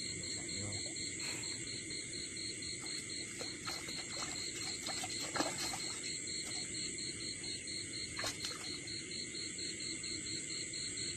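Night chorus of insects: several steady high-pitched trills at once, one of them pulsing rapidly and evenly. A few short clicks and rustles from hands working at the water's edge come through around the middle.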